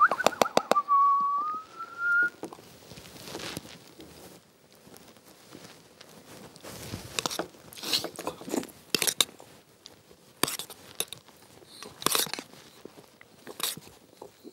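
Spoons clinking and scraping in small containers, with chewing. It opens with a quick run of clicks and a short whistled note that dips and then rises slightly over about two seconds.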